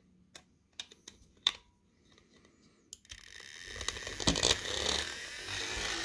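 A few light clicks as a battery-powered motor launcher is fitted against a gyroscope's wheel. About three seconds in, the launcher's small electric motor starts whirring and grows steadily louder as it spins up the gyroscope's heavy metal wheel.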